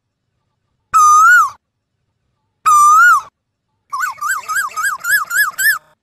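Asian koel calling: two single whistled notes, each held and then swooping up and down, followed by a quick run of about seven shorter notes, about four a second.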